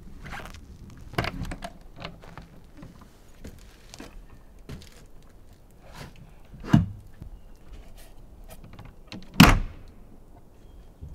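Scattered knocks and clicks, then a thump about two-thirds of the way in and a louder thud near the end: a truck camper's rear door being opened and pulled shut as someone gets in.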